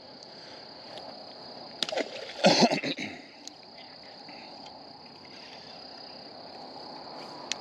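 Insects chirring steadily, with a splash in the water about two to three seconds in.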